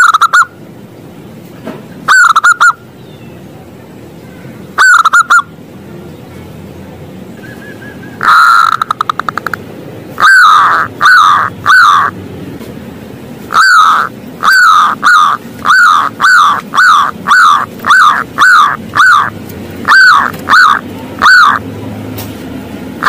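Zebra dove (perkutut) singing loudly: a few isolated short coos, then about eight seconds in a quick stuttering trill, followed by a long run of rapid, evenly spaced coos, about two a second, each note dipping in pitch.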